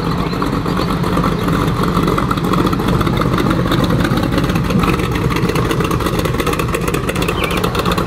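T-bucket hot rod's open, exposed engine running loudly as the car drives slowly past, with a rapid, even pulse from the exhaust.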